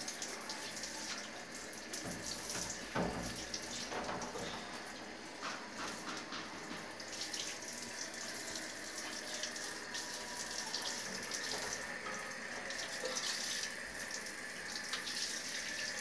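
Handheld shower head spraying water onto a wire birdcage and tiled floor: a steady hiss of spray with splashing.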